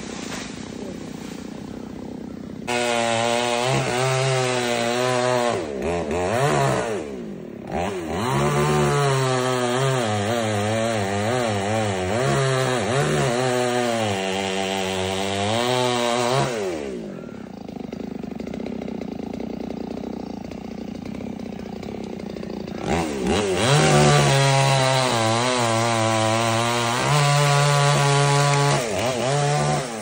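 Two-stroke chainsaw cutting into a coconut palm trunk, its engine pitch dipping and rising under load. It drops back to idle about halfway through, then revs up and cuts again, easing off near the end.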